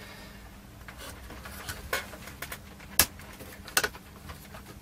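A few sharp clicks and taps of a screwdriver and small metal parts on a power supply's metal case and circuit board, the loudest about three seconds in, over a faint steady hum.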